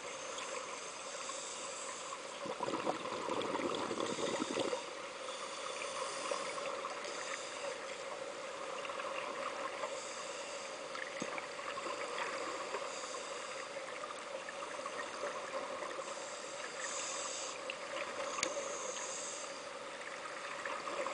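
Scuba regulators heard underwater: a short hiss at each breath drawn through the demand valves every second or two, and a louder rush of exhaled bubbles about three to five seconds in, over a steady hum. Two divers are breathing from one tank, one through the buddy's alternate (octopus) regulator.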